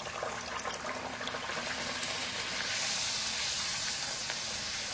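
Ragi poori deep-frying in hot oil on high flame: a steady sizzle with fine crackling that builds over the first few seconds.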